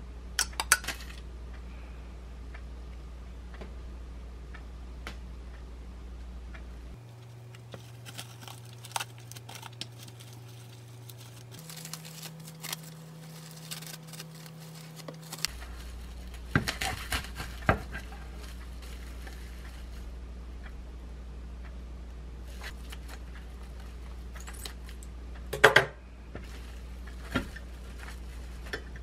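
Kitchen handling sounds at a cutting board: a metal spoon clinking against a glass bowl at the start, then scattered taps, rustles and clinks of plastic wrap, knife and plate, with a sharp clatter a few seconds before the end. A steady low hum runs underneath.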